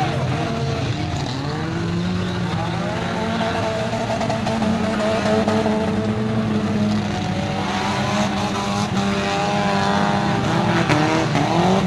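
Several demolition derby cars' engines running and revving at once, their pitches rising and falling against each other as the cars accelerate and back off around the dirt arena.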